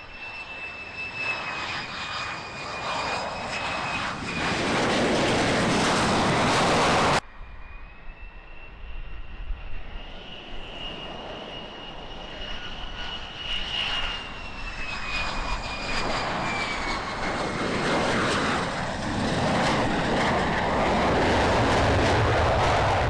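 F-35A fighter's single turbofan engine on approach with gear down: a high whine that drifts lower in pitch over a jet roar that grows louder as it nears. The sound cuts off abruptly about 7 seconds in, then the whine returns and the roar builds loud again toward the end.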